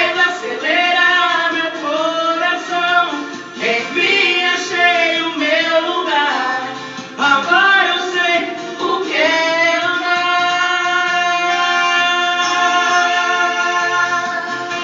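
A song with sung vocal runs that slide up and down, then settle into a long held note from about ten seconds in.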